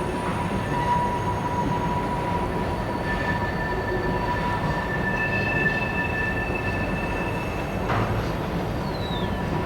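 Freight train cars of a Norfolk Southern oil train rolling past, a steady rumble with high, steady squealing tones from the wheels that fade in and out. A single sharp knock comes near the end.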